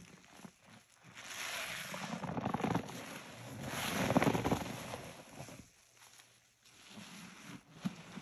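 A detergent-soaked sponge squeezed in rubber-gloved hands, in dry squeezes: a long crackling squish that swells about a second in, is loudest near four seconds and fades, with shorter crackles near the end.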